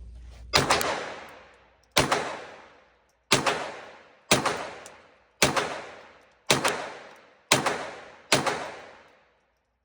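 Eight gunshots fired one at a time, about a second apart, each with a ringing tail that fades over about a second.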